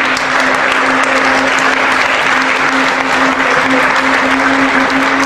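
Audience applauding steadily, many hands clapping together, with a steady low hum underneath.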